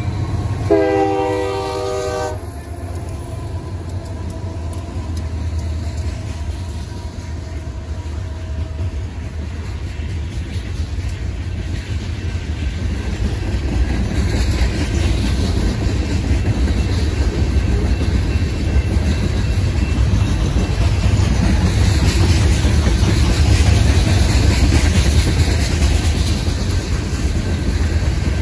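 Diesel locomotive horn sounding a chord that cuts off about two seconds in. After it, a train of coal hopper cars rolls past: a steady low rumble of wheels on rail with clattering that grows louder.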